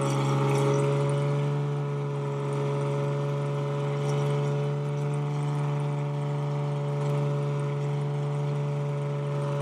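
Lamborghini Murciélago's V12 engine idling steadily.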